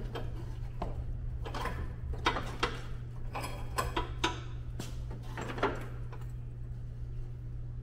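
Irregular metal clinks and knocks from work on the mounting pins and hangers of a riding mower's cutting deck, which sits on a floor jack. The knocks die away about six seconds in, over a steady low hum.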